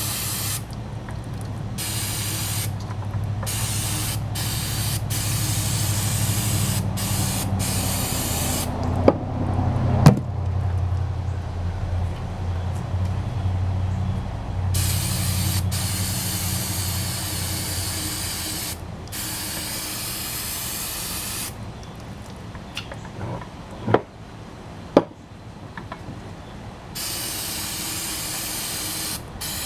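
Aerosol can of non-chlorinated brake cleaner sprayed in repeated bursts of hiss, stopping and starting, to degrease the open differential's spider gears. A low hum runs under the first half, and there are a few sharp clicks.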